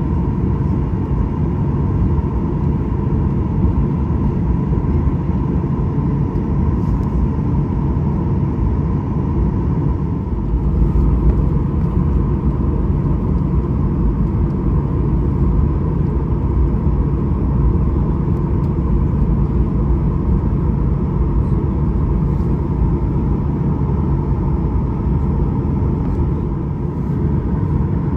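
Steady cabin drone inside a Boeing 737-800 airliner: a deep, even rumble from the running CFM56 engines and air, with a thin steady whine above it. It swells slightly about ten seconds in.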